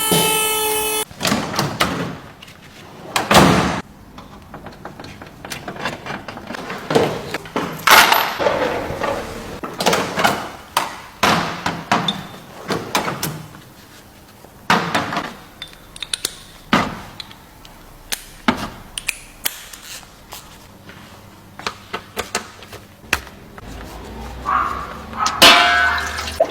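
Irregular clunks and knocks of metal tools and parts being handled, some ringing briefly, spaced a second or more apart.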